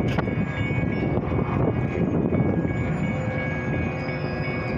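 Metra commuter train running past a road grade crossing, a steady rumble, with the crossing's warning bells sounding as steady high tones. The gates start to lift about four seconds in, a sign that the train has cleared.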